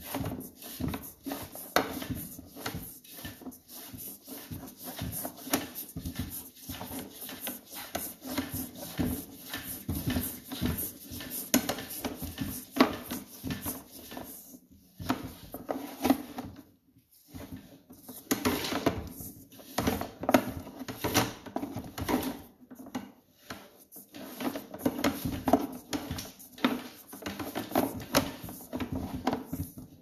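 Sewer inspection camera being pushed through a drain pipe: dense, irregular clicking, scraping and knocking of the camera head and push cable in the pipe, with a lull of a few seconds near the middle.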